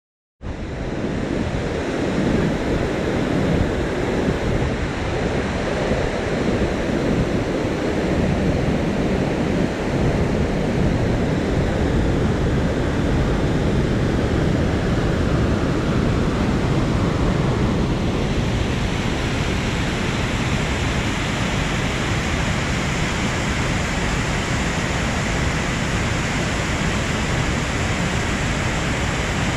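Loud, steady rush of a whitewater river cascade pouring over boulders. It starts abruptly about half a second in and grows more hissy in the last third.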